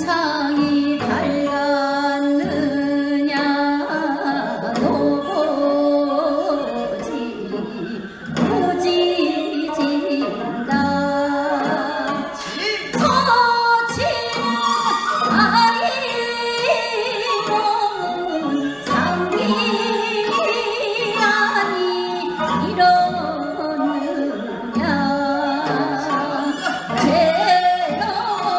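Korean Gyeonggi folk song (minyo) sung with long, wavering held notes over a steady hand-drum accompaniment.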